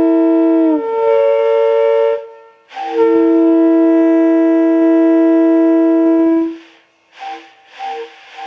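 Leslie RS-3L three-chime train horn blowing a chord on compressed air. A held blast whose pitch sags and shifts about a second in, then a brief break, a long steady blast of about three and a half seconds, and short toots near the end.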